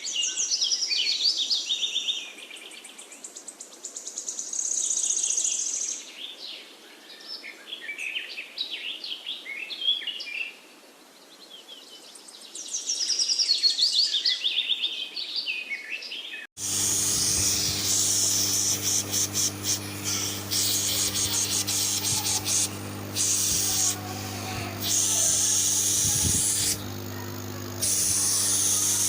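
Birds chirping and calling for the first half. Then, after a sudden change, a refrigerator compressor hums steadily with a loud hiss of air that cuts out briefly a few times.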